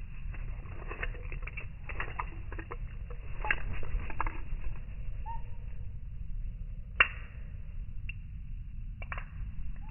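Small birds such as varied tits fluttering their wings and pecking with light clicks and rustles close to the microphone, with a sharp tap about seven seconds in and a couple of short chirps, over a steady low rumble.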